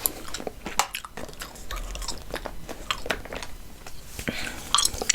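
Chewing gum close to the microphone: a run of irregular short clicks and smacks from the mouth.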